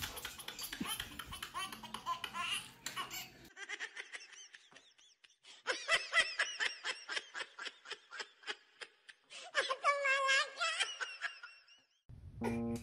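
A baby laughing and giggling in quick repeated bursts, with short gaps. Music starts near the end.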